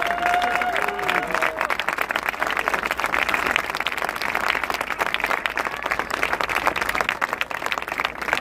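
A crowd applauding, many hands clapping in a dense, uneven patter. A held tone rises above it in the first second or so.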